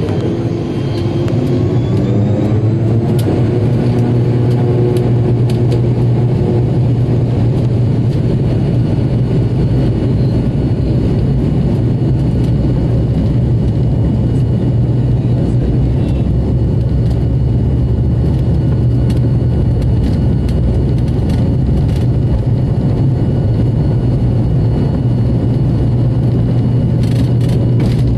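Turboprop airliner's engines and propellers heard from inside the cabin, rising in pitch over the first few seconds as they spool up to takeoff power, then a loud steady drone with a deep hum as the plane rolls down the runway. Brief rattles come through now and then.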